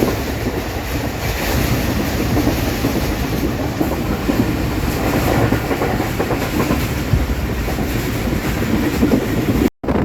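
Passenger train running along the track, a steady rumble with the clickety-clack of wheels over the rails; the sound drops out briefly near the end.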